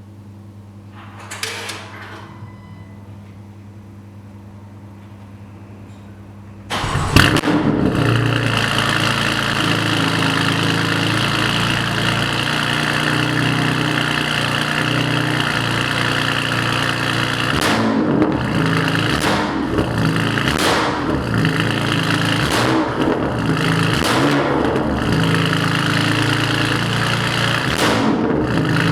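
BMW S55 twin-turbo straight-six with an aftermarket exhaust. It hums quietly at first, then about seven seconds in it bursts into a much louder run with a sharp flare. After that it keeps running loud, with repeated rises and falls of the revs.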